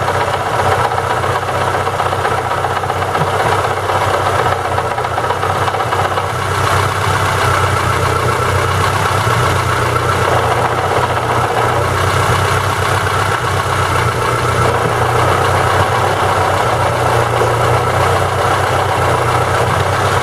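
MeMZ 317 1.4 engine idling steadily, heard at the gearbox, with a very strong noise from the clutch housing or the gearbox itself rather than from the engine.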